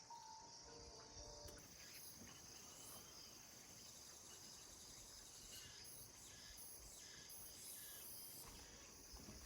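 Faint, steady chirping of crickets and other night insects, high-pitched, over near silence.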